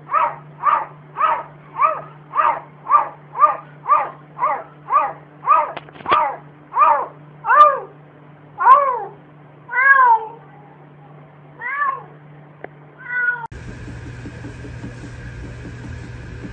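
Domestic cat meowing over and over, at first about two short meows a second, then slower, longer meows that stop about 13 seconds in. After that comes a steady hum.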